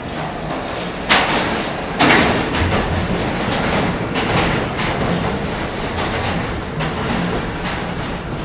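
Subway train running along a station platform: a loud, steady rush and rattle of wheels and cars that jumps louder about a second in and again a second later.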